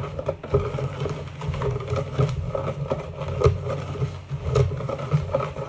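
Wire balloon whisk stirring a dry flour mixture in a plastic bowl, scraping and tapping against the sides in quick repeated strokes.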